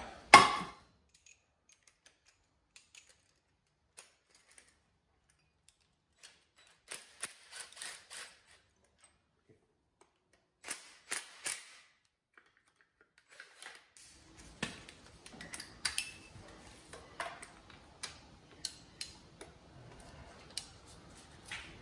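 Hand tools clicking and clattering on the starter motor's mounting bolts: a socket extension and ratchet being fitted and worked. The clicks come in short groups, busier in the last third.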